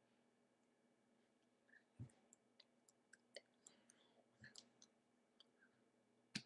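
Near-silent room with faint scattered clicks and three soft thumps, the last and loudest near the end: the incidental sounds of a person signing in front of the microphone, hands touching the body and small mouth noises.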